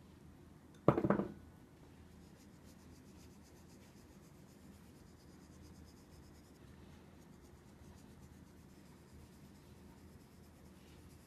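Faint scratchy pattering and rubbing as pinches of salt and pepper are sprinkled by hand onto raw steaks on a plastic cutting board. About a second in there is one short, loud clatter.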